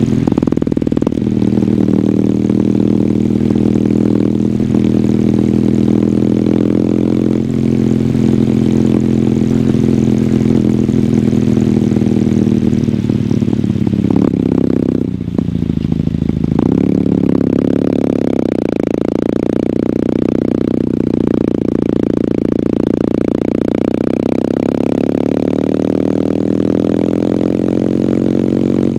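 Kawasaki W800's air-cooled 773 cc parallel-twin engine through its stock exhaust while riding. It runs at a steady speed for the first half, the note breaks and drops briefly about halfway, then climbs steadily in pitch through the second half as the bike accelerates.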